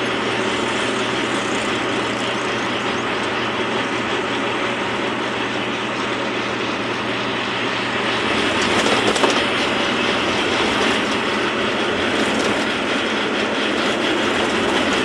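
Hino FB truck driving at road speed: a steady low engine hum under continuous road and cab rattle noise, getting slightly louder about eight seconds in.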